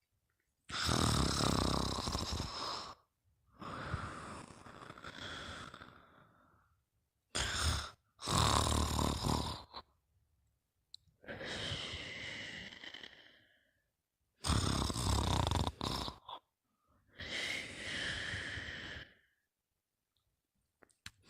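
A sleeper snoring: three loud snores, each followed by a softer, longer breath that fades away, with short silent gaps between.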